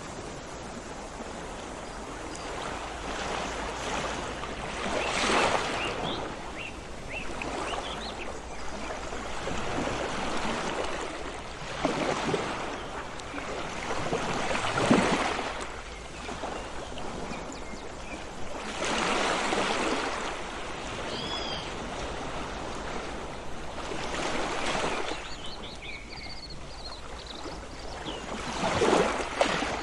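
Sea waves washing onto a shore in repeated swells every few seconds, with a few faint bird chirps over them.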